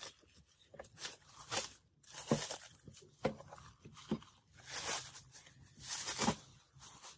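Clear plastic wrap being peeled and crinkled off a speaker's front panel: a series of rustling swishes, with a few light knocks in between.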